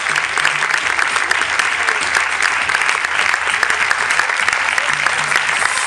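Theatre audience applauding: a dense, steady mass of hand claps from a full house.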